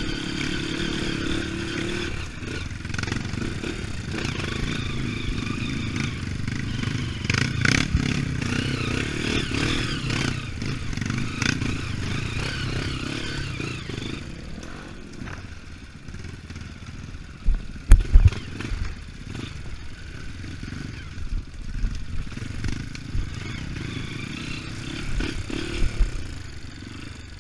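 Dirt bike engine running while the bike is ridden along a rough trail, quieter in the second half, with a few sharp heavy knocks about eighteen seconds in.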